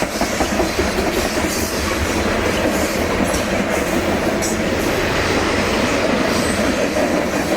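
Coal train rolling past at close range: a steady rumble of steel wheels on rail with a rapid clickety-clack of wheels over the track.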